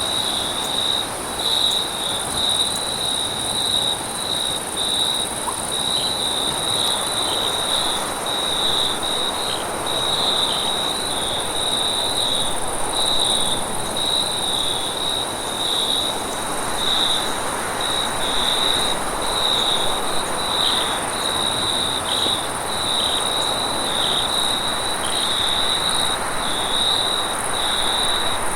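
Night insect chorus: crickets chirping in a steady pulse about once a second, over a continuous high, thin hiss of other insects, with a soft background rush that swells a little in the second half.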